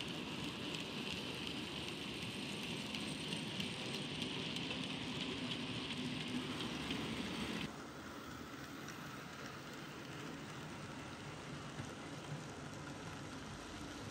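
OO gauge model goods train of coal wagons and vans rolling along the track: a steady rattle of small wheels clicking over the rails. About eight seconds in it drops suddenly to a quieter rattle with occasional clicks.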